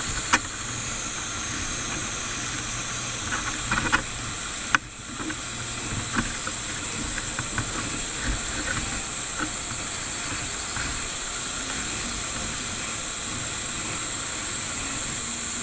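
Steady hiss with a constant high-pitched band, broken by three sharp clicks: one about a third of a second in, one near four seconds, and one near five seconds, which is followed by a brief drop in level.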